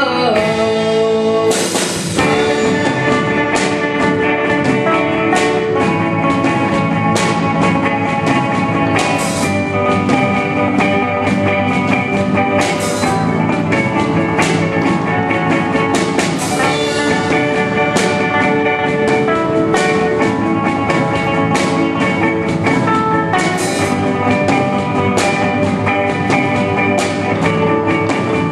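Live rock band playing an instrumental passage without vocals: guitar and sustained chords over a drum kit keeping a steady beat.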